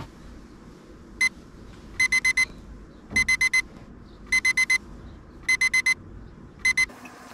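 Electronic alarm clock beeping: short, high, even beeps in quick groups of four, repeating a little more than once a second, with a single beep before the first group and two at the end.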